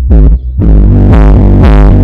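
Electronic dance music played very loud through a DJ rig of two Ahuja 1000-watt bass speakers and two tops, with a heavy, deep bass under a sweeping synth line. The sound dips briefly about half a second in.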